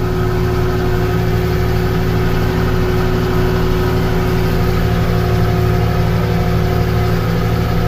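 Tractor engine running steadily, a constant drone with a steady tone over it.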